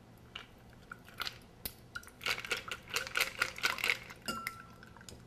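Ice clicking and rattling against a cocktail shaker's strainer as the shaken eggnog mixture is poured off into a glass: scattered small clicks, thickest in the middle.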